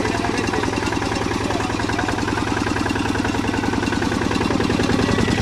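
Kubota 15.5-horsepower single-cylinder diesel engine of a two-wheel walking tractor idling steadily, with an even, rapid pulse from its firing strokes.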